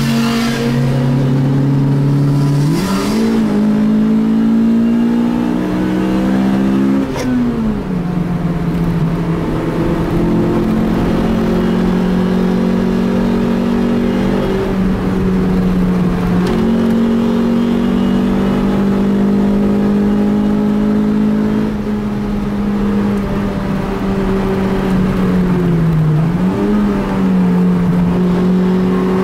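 Car engine heard from inside the cabin under hard driving. Its revs jump sharply about three seconds in and climb for a few seconds, then fall at a gear change about seven seconds in. After that they hold steady, with a brief dip and recovery near the end.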